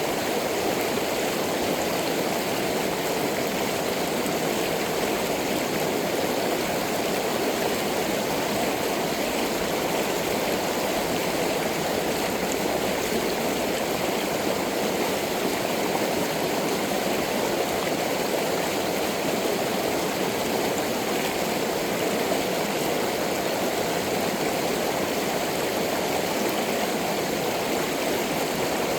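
Stream water rushing steadily, an even unbroken wash of flowing water.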